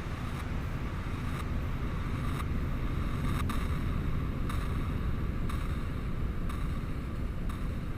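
Processed beach wind and surf: a steady, deep, rumbling wash of noise that swells slightly, made to sound far away and eerie. Faint soft ticks recur about once a second over it.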